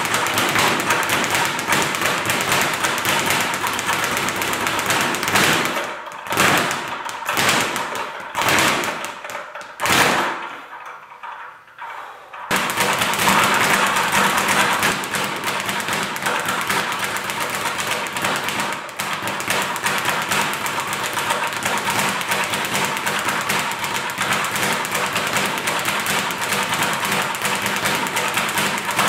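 Speed bag punched against a wooden rebound platform in a fast, continuous rattle of hits. Between about six and twelve seconds in, the rhythm breaks into a few separate hits and a brief lull, then the fast rattle picks up again.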